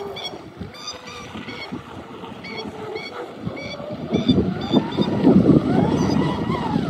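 Electric RC speedboat running fast across the water, its brushless motor (a 1650 kV 4090 on 6S) whining with a pitch that rises and falls, louder from about four seconds in as it passes closer. Repeated short bird calls in the first half.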